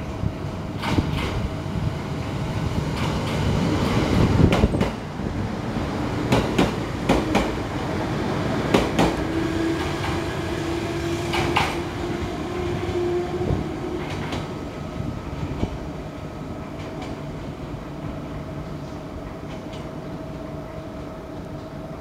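JR East 701 series electric train pulling away, its wheels clacking over rail joints in irregular sharp clicks over a low rumble. Midway a motor whine rises slightly, then the sound fades as the train recedes.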